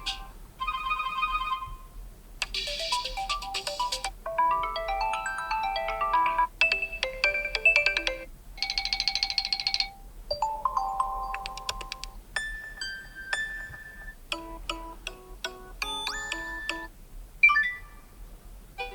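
TCL 306 smartphone ringtones previewed one after another: about nine short electronic melodies and chimes, each lasting one to two seconds before cutting off and giving way to the next.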